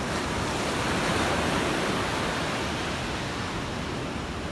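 Sea surf: waves washing in on the shore, a steady rush of noise that swells about a second in and then eases off.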